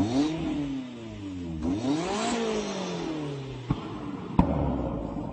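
A Mercedes 190 engine is revved twice, its pitch climbing and then falling away each time. About a second and a half later come two sharp pops from the exhaust flamethrower kit.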